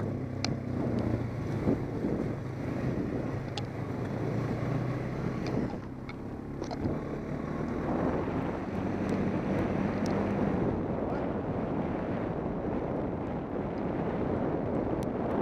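ATV engine running steadily under way on a dirt and gravel trail, with wind rushing over the helmet-mounted microphone and a few sharp ticks. The engine note dips briefly about six seconds in, then picks up again.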